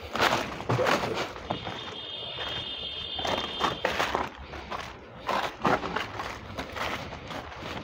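Footsteps crunching over dry fallen leaves, irregular crackles and rustles as someone walks along the log piles. A thin high tone with several close pitches sounds for about two seconds near the start.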